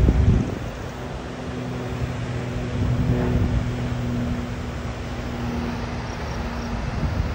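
Small propeller airplane flying overhead, its engine a steady drone, with wind buffeting the microphone at the start.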